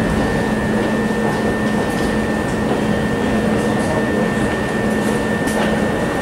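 Southern class 377 Electrostar electric multiple unit running with a steady hum and a constant high whine held on one note.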